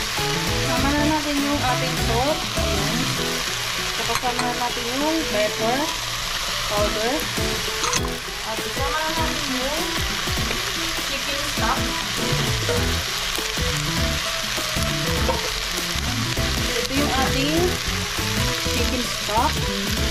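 Macaroni, chicken and carrots sizzling as they sauté in an aluminium pot, stirred with a wooden spatula; a steady frying hiss.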